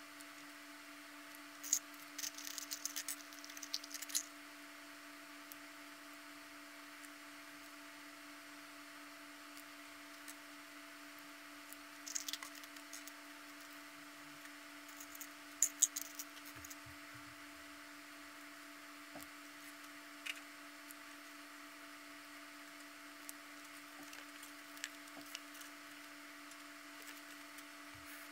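Small plastic twisty-puzzle pieces clicking and rattling as they are handled and fitted during assembly, in three short bursts: about two seconds in, again around twelve seconds and around sixteen seconds, with a few single clicks later. A steady electrical hum runs underneath.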